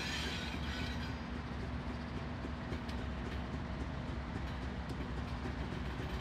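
BNSF diesel freight locomotives rolling slowly past: a steady low engine rumble with a constant hum, and scattered faint clicks from the wheels on the rails.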